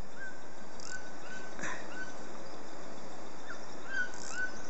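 An animal's short whistled calls, each note rising quickly and then levelling off, repeated irregularly a dozen or so times, over a steady high-pitched drone.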